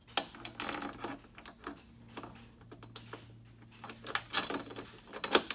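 Light clicks and taps of metal mounting bars being slid and set down on a snowmobile's tunnel, in scattered clusters near the start and again near the end, with a quieter stretch in between.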